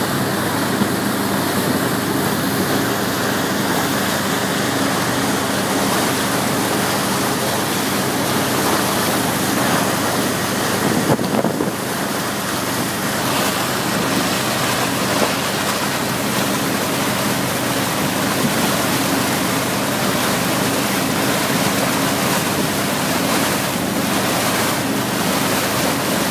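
Steady rushing and churning of a wakesurf boat's breaking wake, over the low, even hum of the boat's engine running under way, with wind buffeting the microphone.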